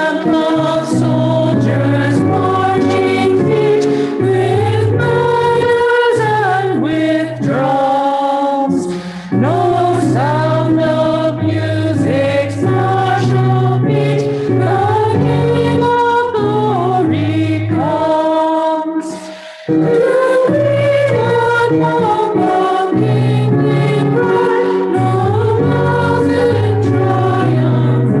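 Church hymn sung by a few voices over sustained instrumental accompaniment, with short breaks between phrases about 9 and 19 seconds in.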